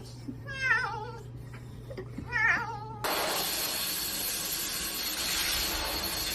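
A cat meowing twice in drawn-out, wavering cries. About three seconds in, these give way abruptly to a steady hiss.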